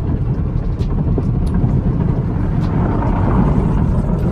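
Automatic car wash working over the car, heard from inside the cabin: a steady, loud rumble and wash of water and foam spraying onto the body and glass.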